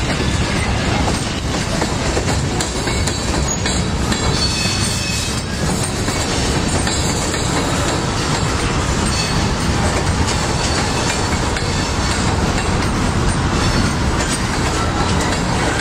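Freight train cars, tank cars and hoppers, rolling past close by: a steady rumble of wheels on rail with rhythmic clicking over the rail joints and a faint high wheel squeal in the middle.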